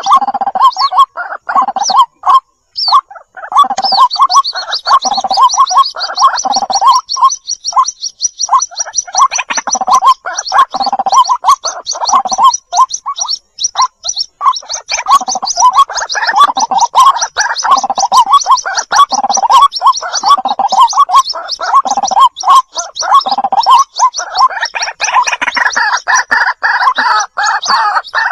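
White-breasted waterhen chicks calling for the parent bird: a dense stream of short, repeated calls, joined a few seconds in by a rapid, high-pitched trill that runs on over them.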